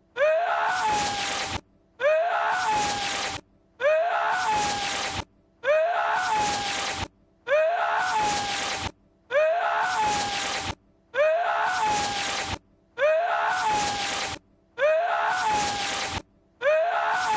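A short film clip of Lord Voldemort's sharp, sneeze-like cry, looped over and over: each loud cry lasts about a second and a half with a falling pitch, followed by a brief silence, repeating about every 1.8 seconds, roughly ten times.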